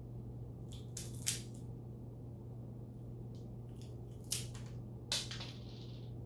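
Packaging being crinkled and rustled in short, scattered bursts, the sharpest just after a second in and around four and five seconds in, over a steady low hum.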